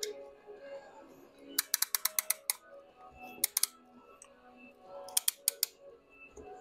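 Ratchet clicking as it tightens a piston ring compressor band around a piston. There are three quick runs of clicks: about eight, then three, then about five.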